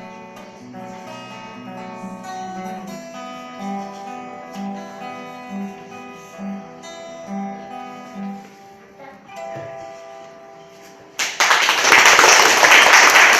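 Acoustic guitar played solo: plucked melody notes over a bass note repeated about once a second, the piece closing with its last notes about ten seconds in. About a second later loud applause breaks out.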